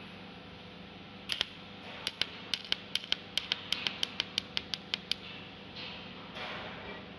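TIG welding on stainless steel: a run of sharp, regular ticks, about four a second, for several seconds over a steady low hum, followed by a short hiss.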